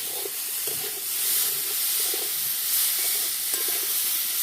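Chopped giant taro (maan kochu) frying in hot mustard oil in an uncovered kadai, giving a loud, steady sizzling hiss as it is stirred.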